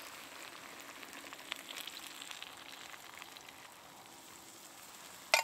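Browned meat and vegetables sizzling in a cast-iron Dutch oven as warm water is poured in from a steel mug: a steady hiss with small crackling ticks, and a sharp knock near the end.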